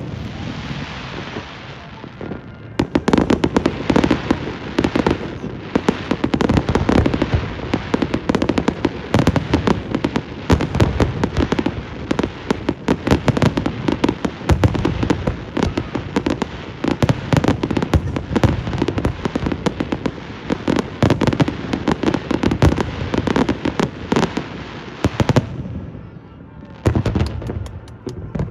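Aerial fireworks going off: a dense barrage of sharp bangs and crackling, many bursts in quick succession, easing off briefly near the end.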